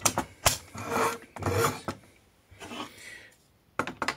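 Metal legs of a Campingaz Bivouac camping stove being handled and fitted into its plastic base: sharp clicks near the start and again near the end, with scraping, rubbing noises in between.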